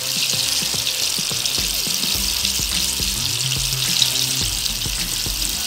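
Snapper fillets coated in rolled oats deep-frying, fully submerged in hot oil: a steady, dense crackling sizzle.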